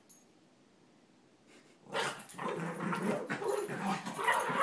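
Bichon frise growling in a rough, continuous grumble as it spins after its tail, starting about two seconds in, with a short higher yip near the end.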